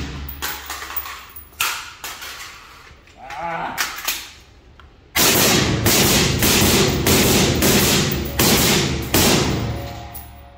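Rifle shots: a few single shots early on, then from about five seconds in a fast string of shots, two to three a second, for about five seconds, each followed by a short echo.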